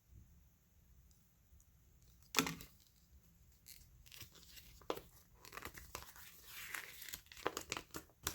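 Packaging being handled by hand: a sharp rip about two and a half seconds in, then rustling, crinkling and small clicks.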